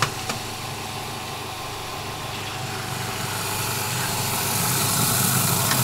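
Countertop blender motor running steadily as eggs are blended into the sugar, growing louder over the last few seconds, with a couple of short clicks at the start.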